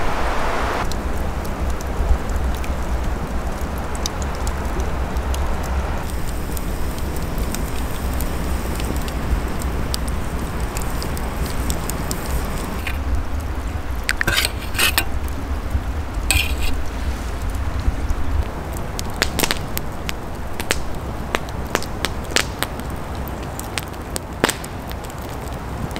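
Wood campfire crackling, with frequent sharp pops and snaps over a steady low rumble.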